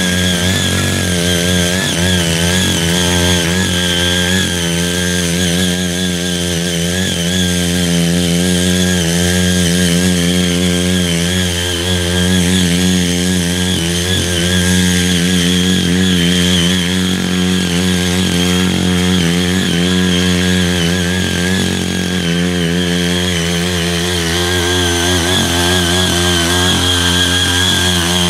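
Small 78.5 cc petrol engine of a CY80 walk-behind power tiller running steadily under load as its rotary tilling blades churn soil and weeds; the engine note wavers slightly as the load changes.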